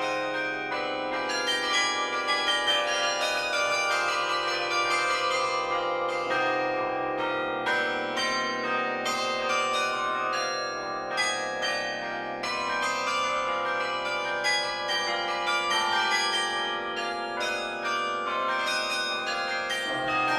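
Carillon bells playing a tune, melody over chords, struck from the baton keyboard; each stroke rings on and overlaps the next.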